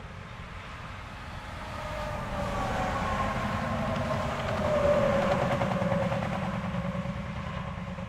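Semi-truck passing on an interstate highway, with an engine drone and tire whine over steady distant traffic. The sound swells to its loudest about five seconds in, then fades as the whine drops in pitch.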